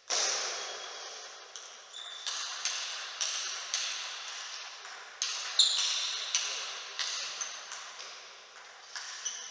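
Table-tennis rally: the plastic ball clicking sharply off the rackets and the table, roughly every half second, each hit ringing on in the echoing hall.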